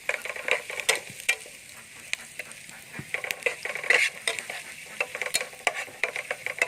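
Food frying in a pan: a steady sizzle with irregular crackles and pops.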